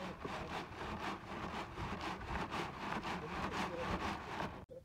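Soil and pebbles rattling and scraping over the wire mesh of a wooden-framed archaeological sifting screen as it is shaken back and forth, about five strokes a second. The sound cuts off suddenly near the end.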